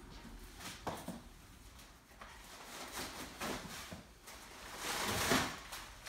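Scattered light knocks and handling noises while a metal cage is being cleaned out, with a louder rustle about five seconds in.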